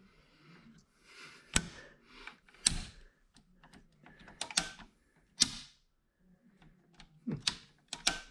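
Circuit breaker in a subpanel being snapped on and off by hand: about six sharp clicks spread over several seconds, some in quick pairs. The lights on the circuit stay dark because its wires have not been joined with wire nuts.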